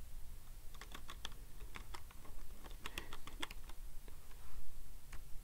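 Typing on a computer keyboard: an irregular run of quick keystrokes beginning just under a second in.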